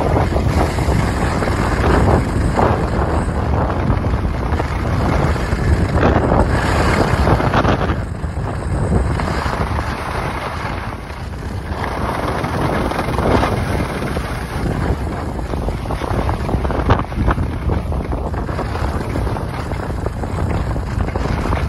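Wind buffeting the microphone of a moving skier, a loud rumble that swells and eases, with the hiss and scrape of skis on packed snow.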